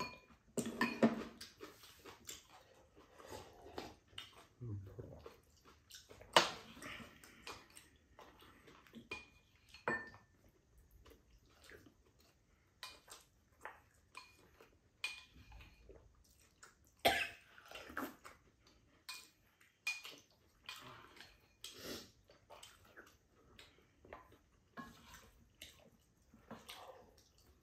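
Tableware clinking during a meal: a spoon and chopsticks tapping and scraping against ceramic bowls and a pan. The clinks come in an irregular scatter, a few much sharper than the rest, some with a short ring.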